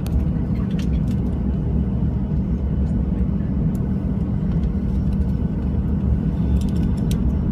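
Steady low drone inside the cabin of a Boeing 737-700 on the ground, with a few faint clicks.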